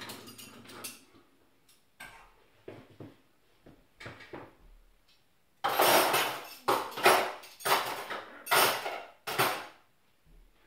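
Dishes and cutlery clinking and clattering as a dishwasher is emptied and things are put away. Light scattered clinks come first, then a run of loud clatters in the second half.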